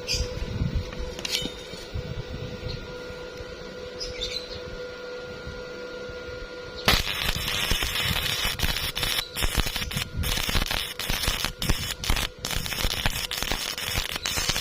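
A steady electrical hum with a few clicks, then about halfway through a welding arc strikes and keeps up a dense, irregular crackle.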